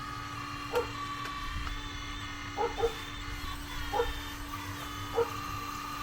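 A dog barks five times in short yelps, two of them in quick succession in the middle, over the steady electric whine of a scale RC hydraulic excavator's pump, whose higher tones shift in pitch as the machine works.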